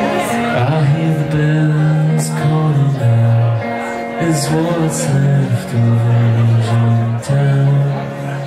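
Live indie rock band playing: a bass line stepping between low notes under electric guitars and keyboard, with drum cymbal strikes every second or two.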